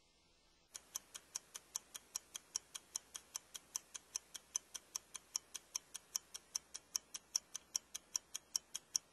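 Stopwatch ticking, sharp even ticks at about five a second, starting about a second in.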